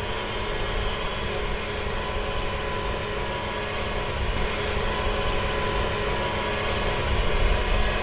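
Fendt IDEAL 10T combine harvester running steadily at work: a dense, even machine hum over a low rumble.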